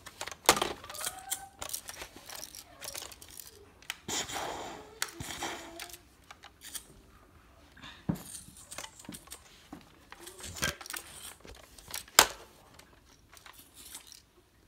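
Plastic clicks and rattles of a toy foam blaster being handled, with three sharp clacks: about half a second in, about eight seconds in and about twelve seconds in.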